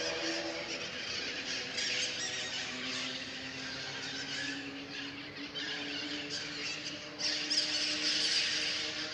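Birds chirping and squawking, many calls overlapping, getting louder about seven seconds in, over a steady low hum.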